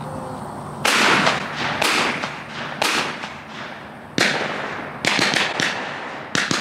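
A rapid string of shotgun shots from hunters firing at doves. About eight sharp reports come in roughly a second apart or closer, starting about a second in, some overlapping as if from more than one gun, each with a short echoing tail.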